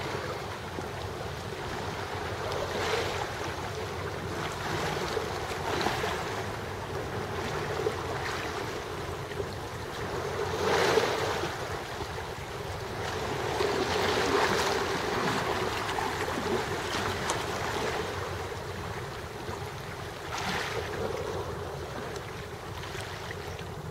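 Small waves lapping and washing against shoreline rocks, swelling every few seconds, with wind on the microphone.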